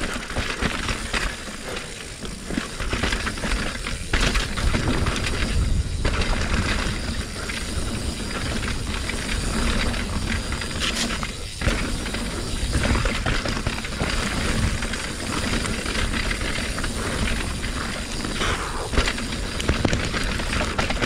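Steel hardtail mountain bike descending a rough, wet trail: tyres rolling over rocks and roots with constant rattling and sharp knocks from the bike, and wind rumbling on the microphone.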